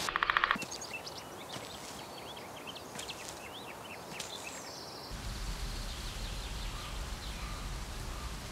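Birds chirping in short calls over an outdoor ambience, opened by a brief, rapid pulsing buzz. About five seconds in the sound changes to a steadier low rumble with only faint chirps.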